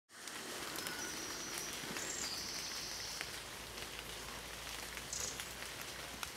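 Steady rain falling, an even hiss scattered with small drop ticks. A few short high chirps come through about a second in, around two seconds in and again near five seconds.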